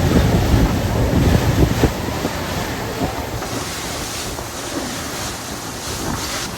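Wind buffeting the microphone and water rushing past a fishing boat under way. A gusty low rumble for about the first two seconds, then easing to a steadier rush.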